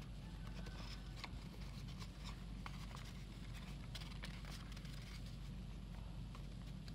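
Sheet of origami paper rustling and crackling as hands fold and crease it: scattered soft crinkles and ticks over a steady low hum.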